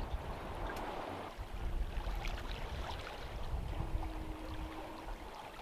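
Sea water washing and splashing along the hull of a Linjett 40 sailing yacht under way in choppy swell, with wind rumbling on the microphone. A faint steady tone sounds twice, each about a second long.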